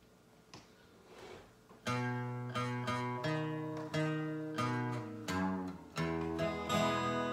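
Acoustic guitars and an acoustic bass guitar strumming a fast country rhythm. They start about two seconds in, with a strum about every half second.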